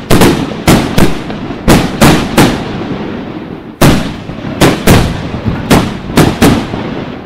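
Aerial fireworks display: firework shells bursting one after another, over a dozen sharp, loud bangs, each trailing off in an echo. There is a short lull of about a second and a half midway.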